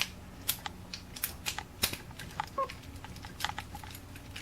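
Irregular light metallic clicks and taps of a key being worked in a Mul-T-Lock padlock's cylinder that won't turn, because it is the wrong key.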